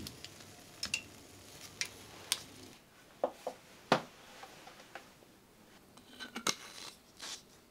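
Scattered light clicks and clinks of dishes, cutlery and glassware being handled in a quiet room, the loudest knock about four seconds in.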